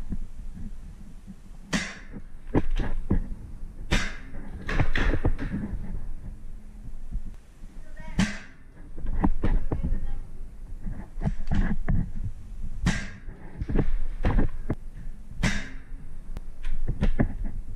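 Paintball fire: about twenty sharp, irregularly spaced pops and smacks, some in quick pairs, over a steady low rumble.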